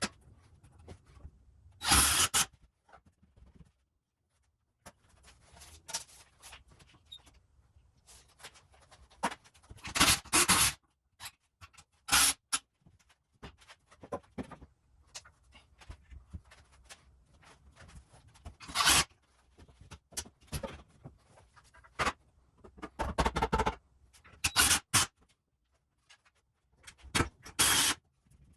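Scattered scrapes and knocks of hands working hardware and wood against the wall, with several louder half-second scrapes about two, ten, nineteen and twenty-three seconds in, and quieter gaps between.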